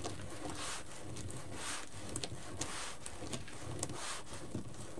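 Deco mesh rustling and crinkling in short bursts as hands fold and scrunch it into ruffles.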